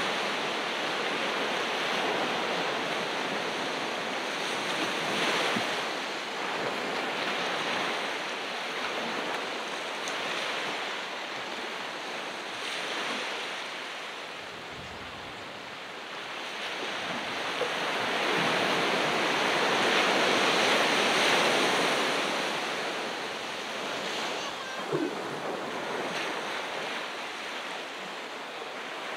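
Ocean waves washing onto a beach: a steady surf hiss that swells and eases, quietest about halfway through and loudest about two-thirds through.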